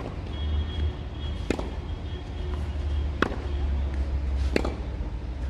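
Tennis rally on a clay court: a ball struck back and forth by rackets, four sharp hits about one and a half seconds apart, over a steady low rumble.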